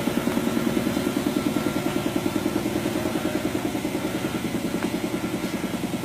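Workshop machinery running in the background with a steady, rapid pulsing beat, about eight beats a second.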